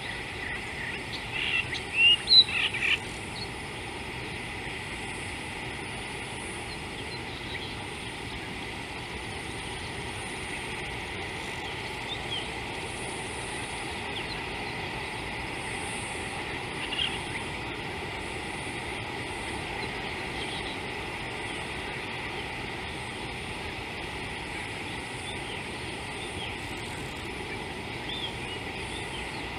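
Outdoor ambience with birds calling: a quick run of short chirps in the first few seconds, then a steady background hiss with a few faint chirps now and then.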